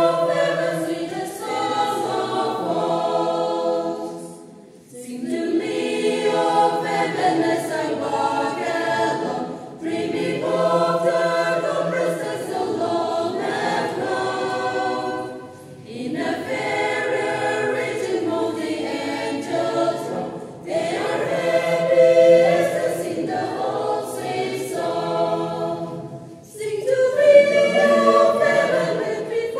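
A mixed choir of women's and men's voices singing a hymn, phrase by phrase, with brief breaks between phrases about every five seconds.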